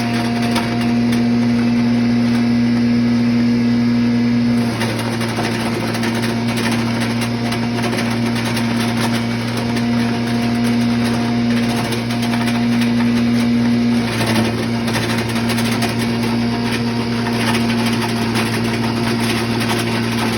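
Pulveriser wood chipper grinding machine running steadily: a constant low hum with a steady higher tone over a rough noisy rush. The tone shifts slightly about five seconds in and again near fourteen seconds.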